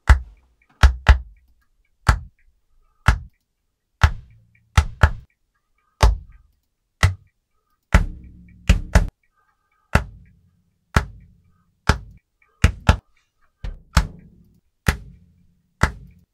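Acoustic kick drum samples from Logic Pro's Drum Replacer, triggered at the timing of recorded hand claps: about twenty sharp kick hits, mostly one a second with some in quick pairs, each with a short low decay. The low tail of the kick changes from one stretch to the next as different kick samples are chosen.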